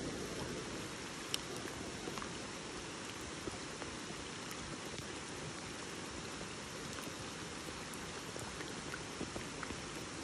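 Steady rain falling on a lake's surface, a dense even hiss with scattered sharp ticks, one louder tick about a second in.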